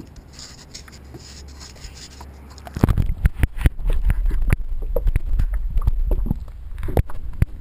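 Underwater sound picked up through an ION Pro action camera's microphone. About three seconds in, a loud, muffled low rumble of water begins, full of irregular knocks and clicks against the camera body.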